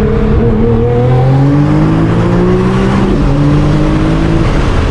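Nissan R35 GT-R's twin-turbo V6, built to about 1300 bhp with an HKS GT1000 turbo kit on E85, pulling under full throttle: the engine climbs in pitch, upshifts about three seconds in, climbs again, and the driver lifts off near the end.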